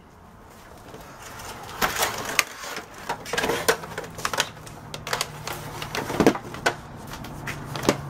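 Hoover upright vacuum cleaner being lifted and stood back upright on a workbench: an irregular run of plastic clunks, knocks and rattles, the loudest about six seconds in.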